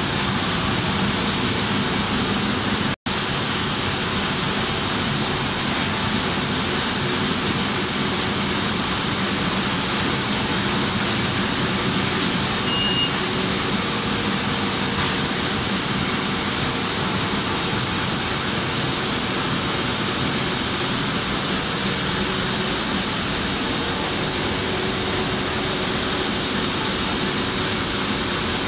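Sheet-fed offset printing press running: a steady, loud mechanical noise with a strong hiss, cutting out for a split second about three seconds in.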